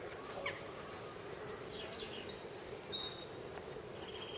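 Small birds chirping faintly over a steady outdoor background hiss, with a few short high chirps about two to three seconds in and a rapid high trill starting near the end.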